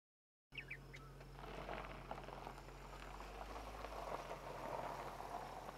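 Faint outdoor ambience that starts about half a second in: a steady hiss with small crackles, a couple of brief high chirps near the start, and a low steady hum underneath.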